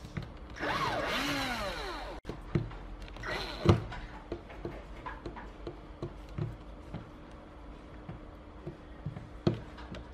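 Cordless drill driving screws through a speaker driver's metal frame into its cabinet. The motor spins up and winds down in a run about half a second in, then gives short pulses and clicks, with sharp clicks near four seconds and near the end.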